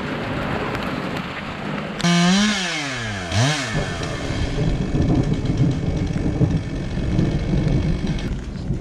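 Chainsaw on a Logosol F2 chainsaw mill cutting lumber from a log. About two seconds in, its engine pitch falls away and then climbs sharply back up, and it runs on under load.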